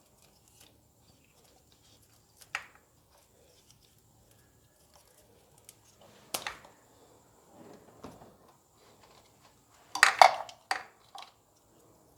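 Hand tools and wiring being handled on a switched-off engine: scattered sharp clicks and light metallic clatter, loudest in a quick cluster of knocks about ten seconds in.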